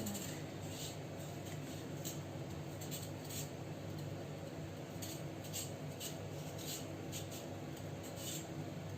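Paring knife scraping against a raw potato in short, irregular peeling strokes, about one or two a second.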